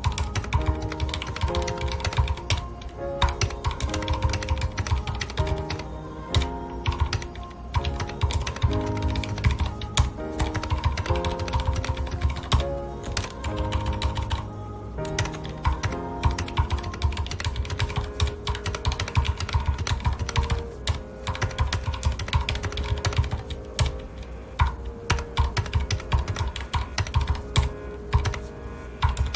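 Continuous, irregular typing on a mechanical keyboard with Cherry MX Red-style linear switches, keystrokes clattering in quick runs, over soft background music with held notes.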